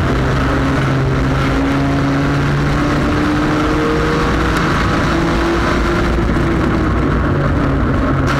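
On-board sound of a front-wheel-drive sport compact race car's engine running hard at steady speed around an oval, its pitch drifting slightly up and down as the throttle is eased and reapplied, over a constant rush of road and wind noise.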